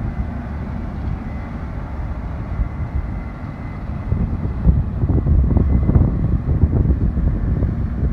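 Case IH Axial-Flow 8250 combine harvester running while harvesting, a steady low rumble that grows louder about halfway through.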